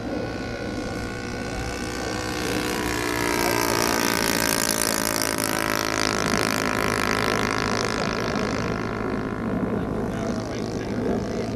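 Radio-controlled model T-28 airplane's motor and propeller droning as it flies past overhead. The sound grows louder to a peak about midway, then fades, its pitch dropping slightly after the peak.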